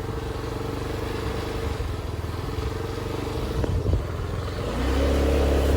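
Small motor scooter engine running steadily, then picking up revs about five seconds in.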